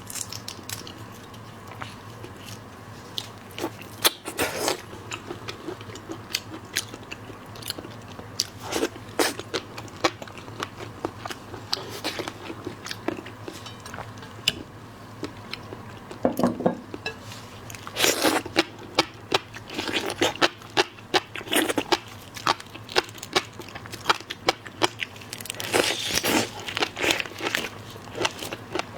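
Close-miked eating of seafood: irregular bursts of crunching bites and chewing, clustered every few seconds.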